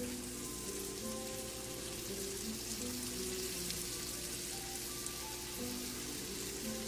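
Flour-dredged salmon fillets frying in hot oil in a skillet, a steady sizzle, with soft background music playing alongside.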